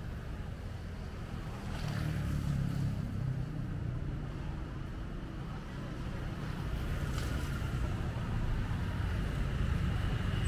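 Street ambience: a steady low rumble of traffic and motorbikes, with wind on the microphone. It grows a little louder near the end as motorbikes come closer.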